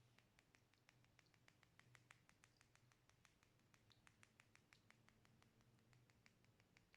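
Slime being pressed and worked by hand, giving a quick run of faint small clicks and pops, about six a second.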